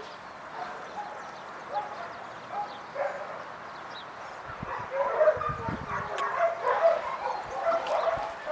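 A dog whining and yipping in short high calls, a few spaced calls at first and then a denser run in the last few seconds, with low rumbles of handling as the dog is lifted and set down.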